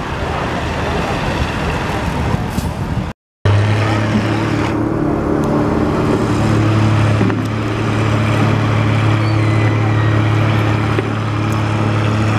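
Farm tractor engines under load, pulling a tractor-pull sled. The sound cuts out briefly about three seconds in, after which a second tractor's engine runs steadily at one constant pitch.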